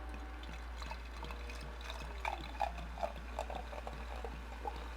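Sparkling apple pear juice being poured into a glass and fizzing, with small soft blips of liquid from about two seconds in, over a low steady hum.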